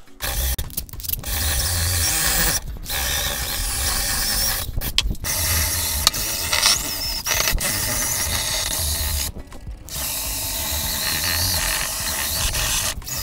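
Cordless drill spinning a wire cup brush against the metal miter saw bed, scrubbing off surface rust. The brushing runs in several bursts separated by short breaks, the longest about nine and a half seconds in.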